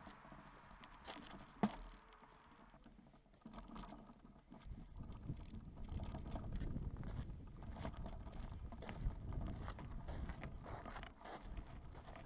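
Mountain bike's 29-inch WTB Ranger tyres rolling over a gravel track: a low rumble with a dense crackle of small stones crunching. It sets in about four and a half seconds in, after a quieter start broken by a single sharp click.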